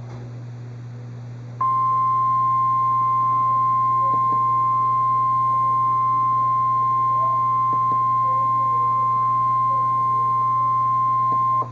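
NOAA Weather Radio's 1050 Hz warning alarm tone from a weather radio receiver. It is a single steady high tone that starts about a second and a half in, holds for about ten seconds and cuts off sharply, signalling that a warning broadcast follows, here a tornado warning. A steady low hum and hiss from the radio run underneath.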